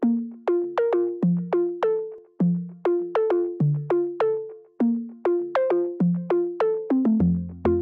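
Background music: an electronic melody of short plucked notes, about three a second, with a deep bass line coming in near the end.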